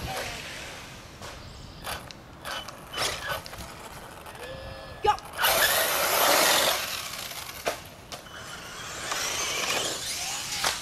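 Radio-controlled cars running on a dirt trail: tyres and motors rushing over loose dirt and leaves, loudest about halfway through as a car passes close, with several sharp clicks and knocks earlier on.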